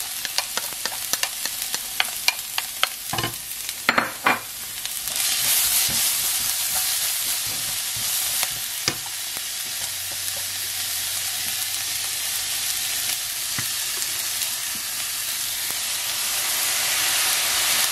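Tiny dried anchovies and chopped chillies frying in a nonstick pan, stirred with a wooden spoon: sharp taps and scrapes of the spoon in the first few seconds, then a steady sizzle. The sizzle grows a little louder near the end as corn syrup and water are poured in.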